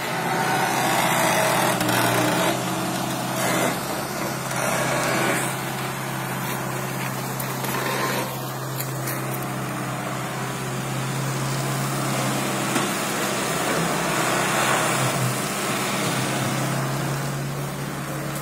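Mini excavator's diesel engine running steadily with a constant low hum while the machine works its hydraulic arm, scooping silt out of a canal.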